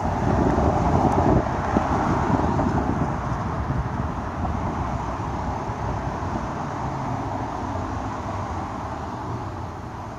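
Street traffic: an SUV passing close by with tyre and engine noise, loudest in the first couple of seconds, then fading as it moves off, with other cars further down the road.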